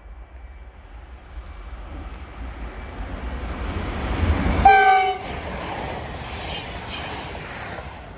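SJ X55 electric multiple unit approaching, its running noise building, then one short horn blast about five seconds in, followed by the steady noise of the train passing.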